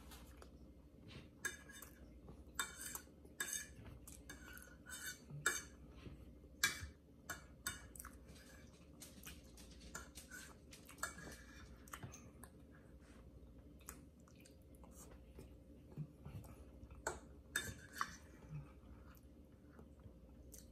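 A fork clinking and scraping against a plate, mixed with chewing, in many short irregular clicks. A faint steady hum runs underneath.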